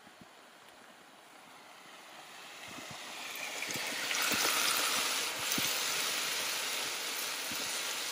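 Ground meat sizzling in a frying pan on a camp stove: a steady hiss with scattered little pops, growing louder over the first four seconds or so.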